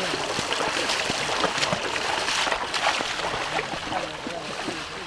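Water of a small stream and waterfall rushing steadily over rocks, with small irregular splashes.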